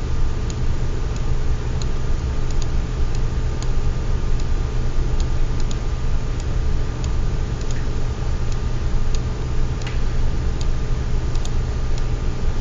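Scattered sharp computer mouse and keyboard clicks, irregular and a second or so apart, over a steady low hum.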